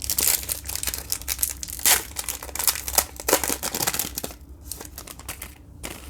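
A Panini Contenders football card pack's plastic wrapper being torn open and crinkled by hand: a dense crackling with a couple of louder rips, easing to quieter rustling in the last two seconds.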